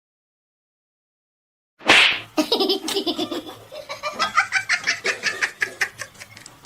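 Silence for about two seconds, then a sudden burst followed by a person laughing in a quick run of short bursts, about four or five a second, dying away near the end.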